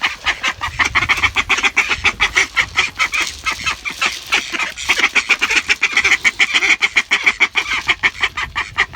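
Three ducks quacking loudly and without pause, their calls overlapping in a fast, noisy racket.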